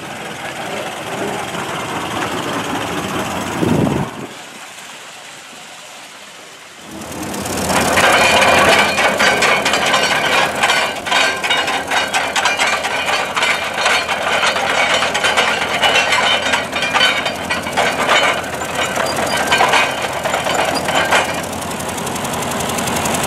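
A Ford Model T touring car driving by. After a short lull, a Ford 2N tractor's 2.0 L four-cylinder gasoline engine running with a dense, rapid clatter, settling to a steadier note near the end.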